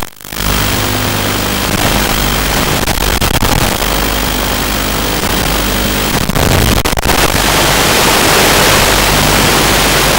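Steady hiss of analog FPV video-link static, with the racing quadcopter's motors running faintly beneath it; the feed briefly cuts out at the start and twice more about six and seven seconds in.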